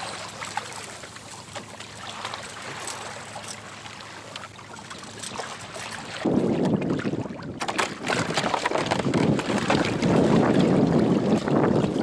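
Wind buffeting the camera microphone over sea water splashing against a sailing kayak's hull. The wind noise jumps much louder about six seconds in and stays loud.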